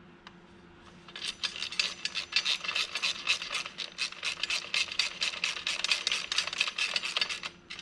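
Ratchet wrench clicking rapidly, about six or seven clicks a second, from about a second in until just before the end, as bolts are run in but not yet tightened.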